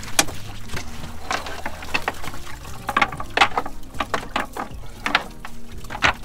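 Wet cast net full of baitfish being shaken out into the boat's bait well: water pouring and dripping with irregular sharp slaps and patters as the fish and net drop in. A faint low steady hum runs underneath.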